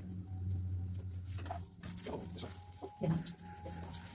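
Flatbread frying in an oiled nonstick pan, the oil sizzling while a spoon scrapes and taps over the bread and pan, over a steady low hum.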